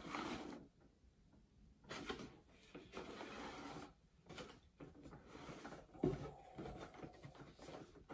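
Cardboard camera box being handled and opened: the inner box sliding out of its sleeve, then the lid and inner flaps lifted, with faint scuffs and rustles and a soft thump about six seconds in.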